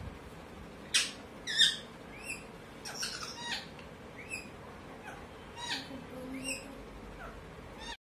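Caged green parakeets calling: a string of short, sharp squawks and chirps, about a dozen spaced irregularly, starting about a second in, the loudest near the start.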